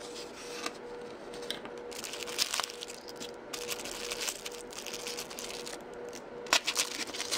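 Crinkling and rustling of thin plastic as the sauce and mustard packets are picked off the film over natto in a foam tray, with small clicks and scrapes from handling the foam container. A faint steady hum sits underneath.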